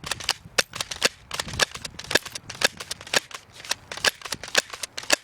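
Stinger S32P airsoft pistol firing in quick succession: a rapid, uneven run of sharp snaps, about five or six a second.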